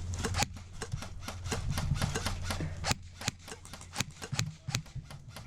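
A quick, irregular run of sharp clicks and knocks, about four or five a second, with a low hum that stops about half a second in.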